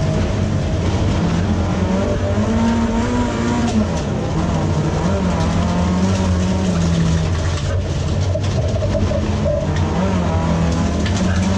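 Folkrace car's engine heard from inside the stripped cabin, its revs rising and falling repeatedly while racing, over a steady din of tyres on the loose dirt track.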